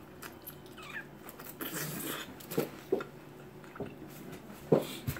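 Close-up eating sounds: quiet chewing and wet lip smacks from a pastrami sandwich, with a few short sharp clicks, the loudest near the end.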